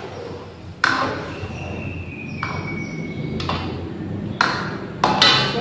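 Sharp knocks of a metal ladle against an aluminium wok: one about a second in, one near four and a half seconds, and a quick pair near the end. After the first knock a clear high ringing tone hangs on for about two seconds.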